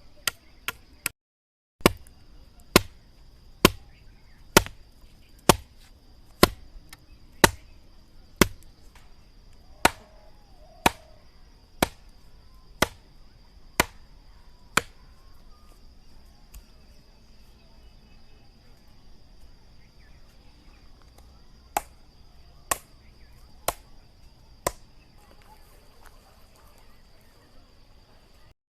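A blade chopping wood in sharp, single strokes about one a second, fourteen in a row, then a pause and four more strokes near the end. A steady high-pitched whine runs underneath.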